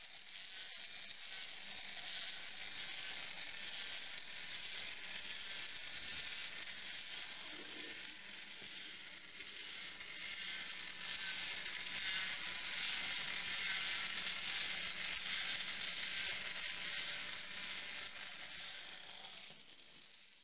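Battery-powered Tamiya cross-country skier toy running: its small electric motor and gearbox make a steady, dense hissing whir with a faint low hum. The sound dips slightly about halfway through and then rises again.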